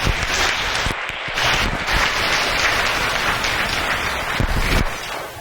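Audience of schoolchildren applauding, dying away near the end.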